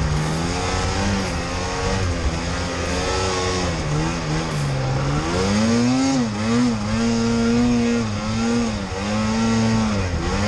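Snowmobile engine revving while pushing through deep powder snow. The pitch dips about four seconds in, climbs sharply near six seconds, and then holds high with brief drops as the throttle is eased and opened again.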